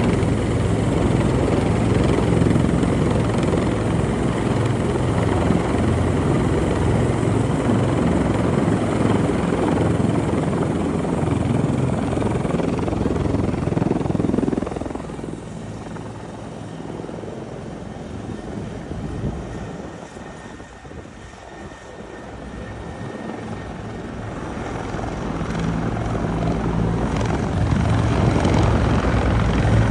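Helicopter rotor and engine noise, loud at first, dropping suddenly about halfway through, then growing louder again toward the end.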